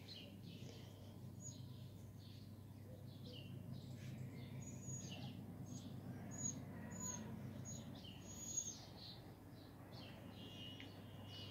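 Faint chirping of small birds: many short, high chirps, some falling in pitch, scattered irregularly over a steady low hum.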